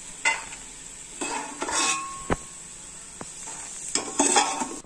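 Steel slotted spoon scraping and clinking against a steel pot several times as fried peanuts are scooped out of hot oil, over a low sizzle of the oil.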